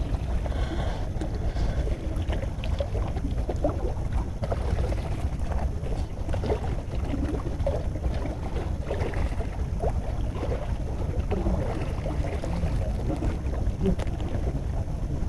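Wind rumbling steadily on the microphone outdoors, with faint scattered sounds above it.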